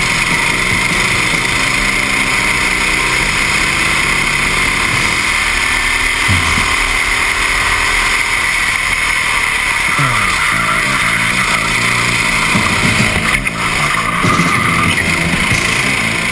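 Racing kart engine running hard, heard from on board the kart, its pitch falling and rising through the corners over a steady hiss.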